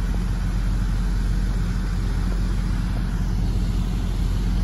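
Semi truck's diesel engine running at a steady low hum, with no change in pitch or level.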